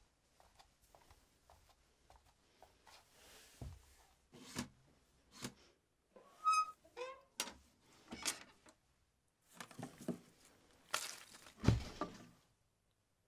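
A person moving about a small room: irregular soft knocks, thuds and rustling of handling household objects, with a short squeak about six and a half seconds in and the heaviest thuds near the end.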